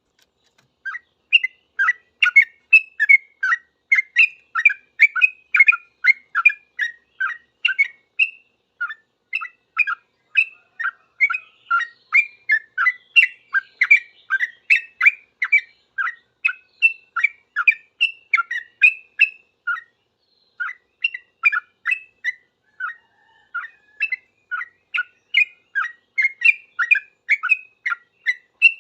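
Yellow-vented bulbul (trucukan) singing its fast 'ngropel' song: a long, rapid run of short chirping notes, about two to three a second, with a short break about twenty seconds in.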